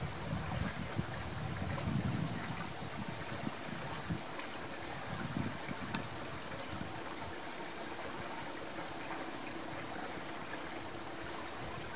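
Steady rush of flowing river water, with a low rumble during the first few seconds and a single faint click about six seconds in.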